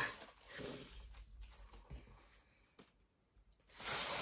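Faint sniffs and breaths of a woman crying, then near the end a loud crinkling rustle as honeycomb kraft-paper packing wrap is handled.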